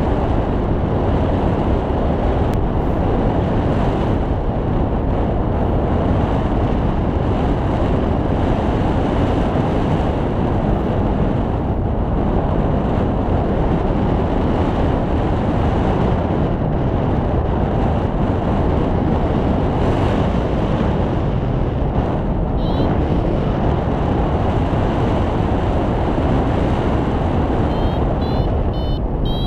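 Steady rushing wind buffeting the action camera's microphone during a paraglider flight. A few short high chirps sound near the end.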